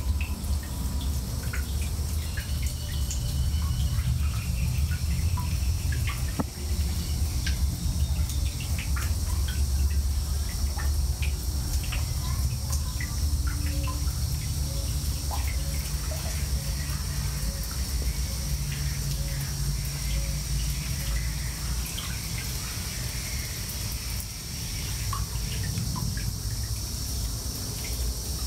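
Water dripping and trickling into a shallow pool, the drops landing as many small irregular plinks. Behind it there is a steady high-pitched insect drone and a low rumble.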